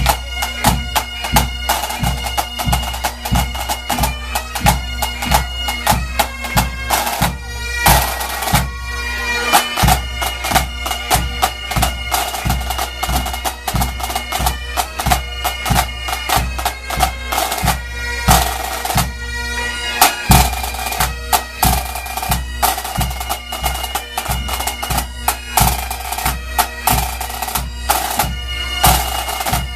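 Pipe band playing: bagpipes carry a melody over a steady drone, with a drum keeping a regular beat of about two strokes a second.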